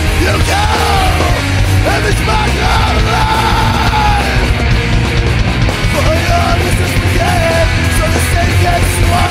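Loud, distorted heavy rock music with a yelled vocal over a dense wall of guitar, bass and drums.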